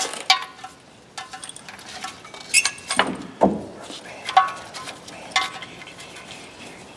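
Metal parts and tools clinking as they are handled and set down, several separate clinks with a short metallic ring, and a short falling squeak about three seconds in.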